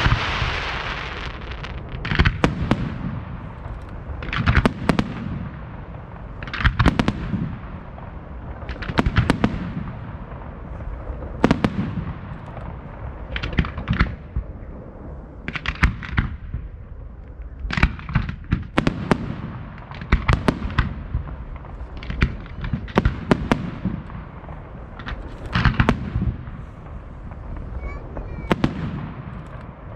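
Fireworks display: clusters of several sharp bangs going off about every two seconds, each followed by a low rumbling echo.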